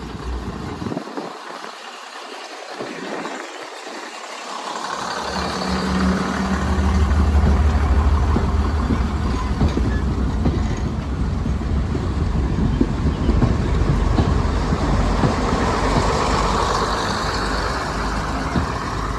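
A train running: a low rumble with a rushing noise over it, which builds up about five seconds in and then stays loud.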